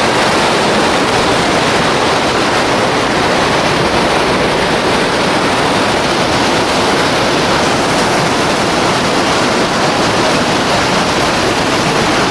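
Waterfall: the Ouzoud falls giving a loud, steady rush of falling water.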